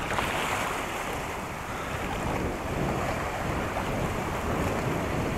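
Strong wind buffeting the microphone over choppy lagoon water, with a steady rush of small waves.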